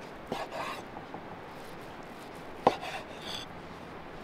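Large knife slicing through a raw minced-meat sausage log and knocking down onto a wooden cutting board. There is a knock at the start, a softer one with a short scrape just after, and a sharper, louder knock about two and a half seconds in.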